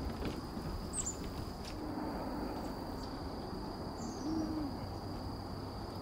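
Wild birds calling. There are a few quick high chips, then a short run of falling high notes about four seconds in, and a low call that rises and falls just after it, all over a steady high-pitched drone.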